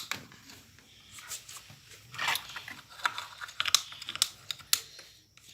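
Slime being mixed with shaving foam by hand, giving irregular sticky clicks and crackles with a longer wet squish about two seconds in.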